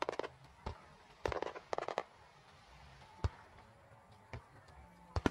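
Aerial fireworks shells bursting. A quick cluster of bangs at the start, then a dense run of crackling reports around a second in. After that come single sharp bangs spaced about a second apart.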